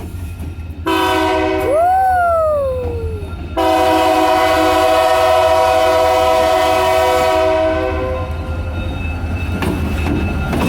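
Diesel freight locomotive's multi-chime air horn sounding twice, a short blast and then a longer one that fades away, over the steady low rumble of the passing train.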